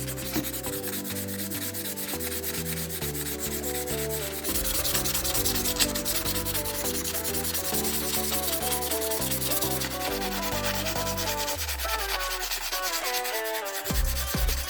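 Hand sanding: a scraping rub of sandpaper on a model car part, over background music with a moving bass line and chords.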